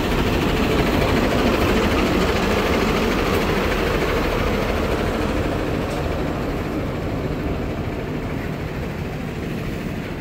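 School bus engine idling, a steady running sound that slowly grows fainter.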